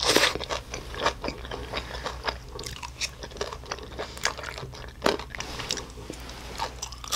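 A person chewing mouthfuls of cream kimchi fried rice and grilled flat makchang (intestine), with many short, irregular clicks and smacks of the mouth.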